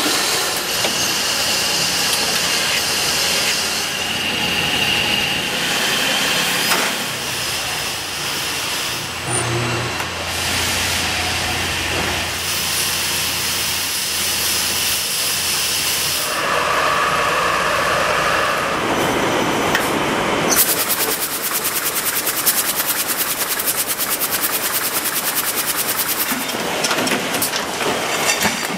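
Textile factory machines running, the noise changing abruptly every few seconds from one machine to the next; from about two-thirds of the way through, a fast, even mechanical clatter.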